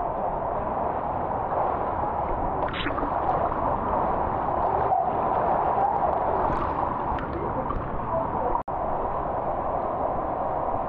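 River water rushing and gurgling through a narrow rock channel, a steady dense wash of water noise.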